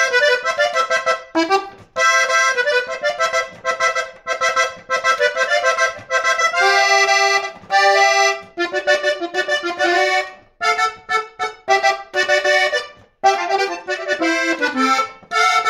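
Hohner Panther diatonic button accordion playing a song solo, the melody going in short phrases with brief breaks between them.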